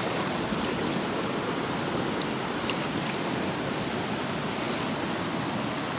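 Steady rush of river water flowing over rocks, an even hiss with no change in level, with a few faint ticks.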